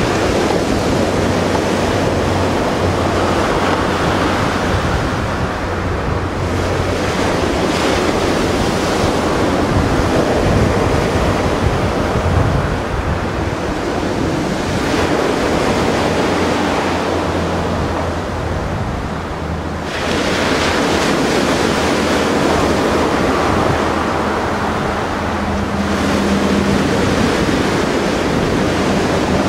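Sea surf, waves washing in and out in slow swells, with wind rumbling on the microphone.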